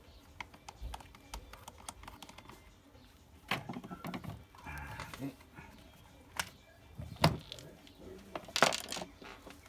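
Small clicks and ticks of a screwdriver and screws working loose from the plastic housing of a Bosch GSB 20-2RE drill, followed by louder knocks and a clatter as the housing half is pulled off, the loudest near the end.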